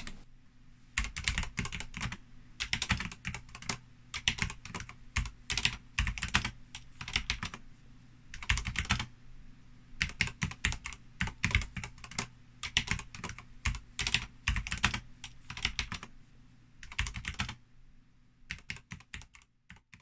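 Typing on a Ducky One2 Horizon mechanical keyboard fitted with Drop MT3 Dasher keycaps: runs of quick key clacks broken by short pauses, with a faint steady hum underneath.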